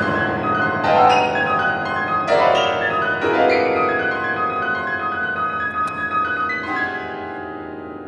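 Yamaha grand piano playing repeated high notes that ring over sustained chords, with new lower chords struck about a second in, around two and a half and three seconds in, and near seven seconds, the sound slowly fading toward the end.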